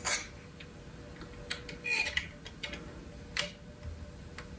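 Irregular light clicks and taps of a hex key and fingers working the extruder's idler tension screw on a Prusa i3 MK3S 3D printer, with one louder clack about two seconds in.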